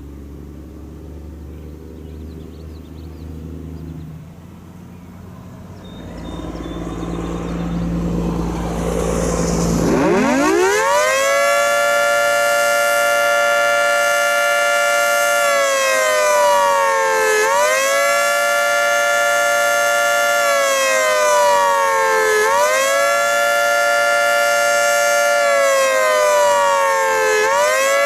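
Federal Signal 3T22 dual-tone rotating outdoor warning siren on a fast-wail test. After about ten seconds of low rumble, it winds up steeply to full pitch. It then cycles in a fast wail, the pitch falling slowly and jumping back up about every five seconds.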